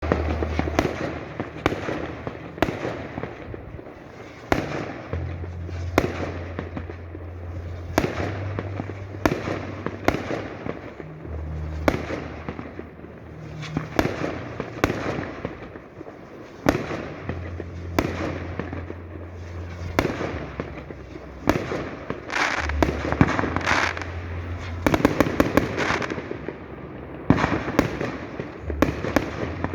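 Fireworks display: aerial shells bursting one after another, about one bang every second, with crackling between them, and quick volleys of rapid bangs near the end.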